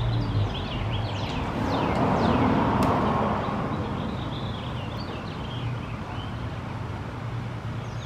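A vehicle passing, its noise swelling and fading over a few seconds, with birds chirping in short falling notes and a steady low hum that drops out just after the start and returns near the end.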